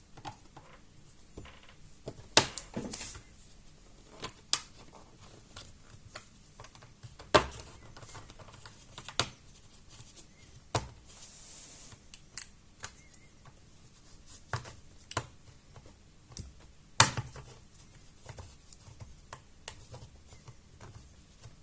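Plastic clips of a laptop's bottom cover clicking and snapping loose one by one as the case is pried open, with irregular sharp clicks and a few louder snaps.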